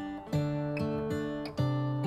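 Background music of a strummed acoustic guitar, with a new chord struck about a third of a second in and again near the end.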